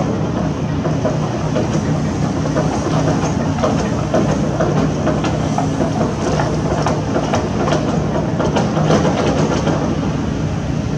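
Excavator diesel engine running steadily, with dense, irregular clattering and cracking of metal and debris over it.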